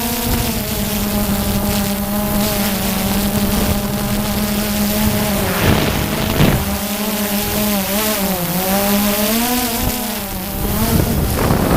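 DJI Phantom 2 quadcopter's propellers humming steadily, the pitch dipping and recovering a couple of times about two-thirds of the way in as it adjusts. Short gusts of wind noise come in around the middle and at the end.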